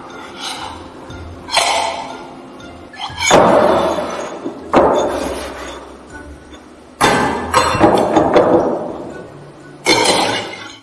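A series of sudden knocks and crashes, some with a glassy clink, each dying away over a second or more, about seven in all.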